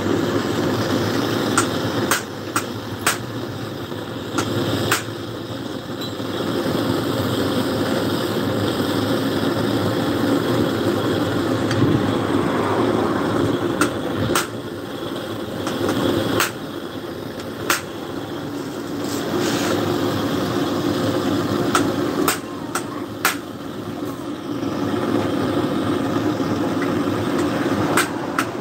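Steady mechanical drone, with sharp metal clicks and taps every few seconds from hand tools working on a car alternator.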